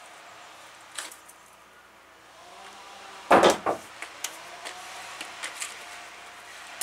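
Leafy cut branches being handled and rustled, with one loud crash of leaves and twigs about three and a half seconds in and a few light clicks and ticks around it.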